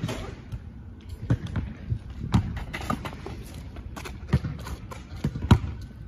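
A basketball bouncing on an asphalt court as it is dribbled, with players' running footsteps: a string of irregular thuds, the loudest about five and a half seconds in.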